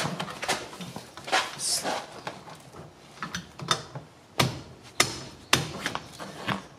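Ratchet wrench tightening nuts onto a wheel adapter's studs: a run of uneven metallic clicks and knocks, sharper and ringing in the second half.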